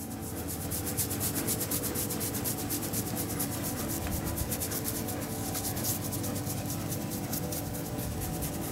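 A hand scratching a deer's fur close to the microphone: fingers rasping through the hair of its head and neck in quick, continuous strokes.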